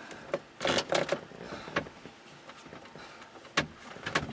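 Plastic dashboard of a 2005 Dodge Ram 3500 knocking, clicking and scraping against the cab as it is worked loose and lifted out by hand. The knocks come several in the first two seconds, then a few more near the end.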